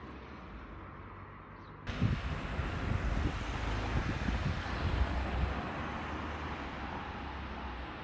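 Street noise of a passing car: its tyre and engine hiss comes in suddenly about two seconds in, swells and slowly fades, with wind buffeting the microphone.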